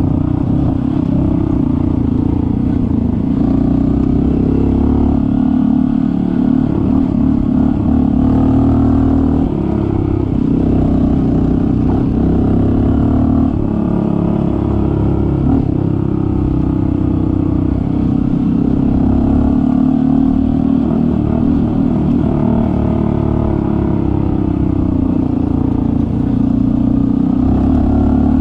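Honda CT125 Hunter Cub's air-cooled single-cylinder engine running steadily while riding a dirt trail. The note rises and dips a little with the throttle.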